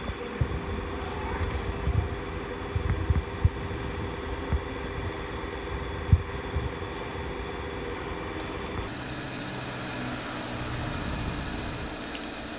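A small motorcycle engine idling steadily, with several dull knocks in the first half.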